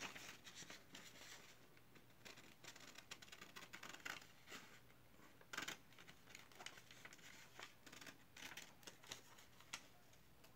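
Faint, irregular scratching and rustling of paper being worked by hand at a table.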